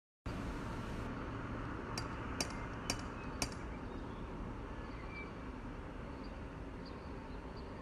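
A cat rattling a front door's metal knocker: four sharp metallic knocks, roughly half a second apart, over a steady background hum.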